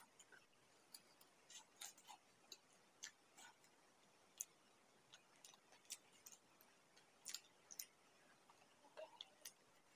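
A person eating samosa with sauce: faint, irregular mouth clicks and soft crunches of chewing, a few each second.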